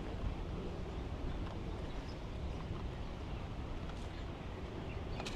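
Steady outdoor shoreline ambience: an even low rumble with a hiss over it, and no single event standing out.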